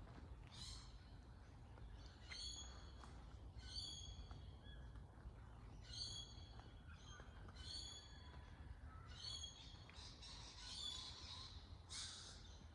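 A bird calling faintly, a short high chirp repeated about eight times, roughly every one and a half to two seconds, over a low steady hum.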